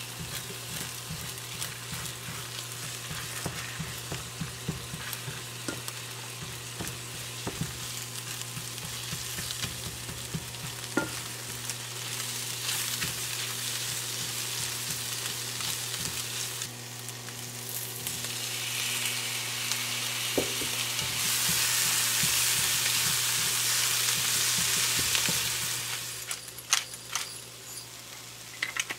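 Egg, shrimp and diced peppers sizzling in an oiled frying pan as a wooden spatula stirs and scrapes through them, with many small taps against the pan while the egg scrambles. The sizzle grows louder about two-thirds of the way in, then drops near the end.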